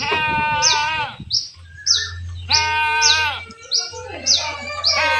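Goats bleating: three long, wavering bleats of about a second each, at the start, in the middle and near the end. Behind them a bird chirps over and over in short, high notes that fall in pitch, roughly two a second.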